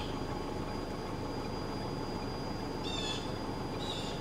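Outdoor ambience: a bird gives short high chirps, once about three seconds in and again near the end, over steady low background noise.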